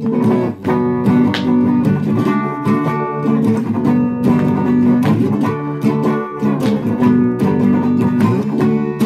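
Guitar played solo, chords picked and strummed with notes ringing on, without singing.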